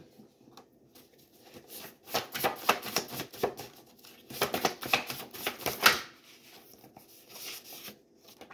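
Tarot deck being shuffled by hand: a rapid patter of card clicks in two runs, between about two and six seconds in, with softer card and paper handling after.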